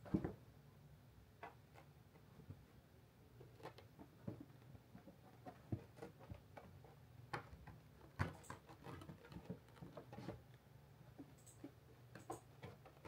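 Faint, irregular soft clicks and rustles from a small kitten moving about inside a felt cat bed, over a low steady hum.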